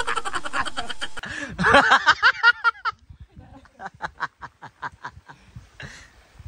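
People laughing: a loud burst of rapid laughter with some voice mixed in, then a softer, fading run of ha-ha pulses at about four a second.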